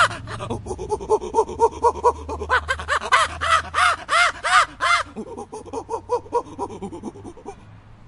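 Lar gibbon calling: a fast series of rising-and-falling hoots, about four a second, with a louder, higher run of notes from about two and a half to five seconds in, trailing off near the end.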